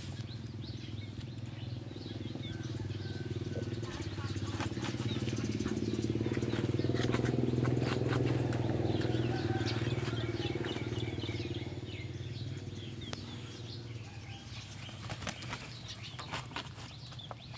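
Chickens moving about, with scattered clicks and scratching and faint short cheeps, over a low hum that swells to its loudest about halfway through and then fades.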